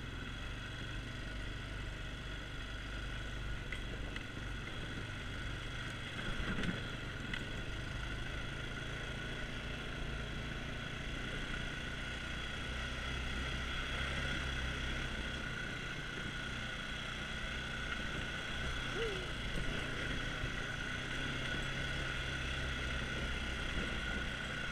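ATV engine running steadily while the quad is ridden along a dirt trail. It makes a low drone with a steady higher whine above it.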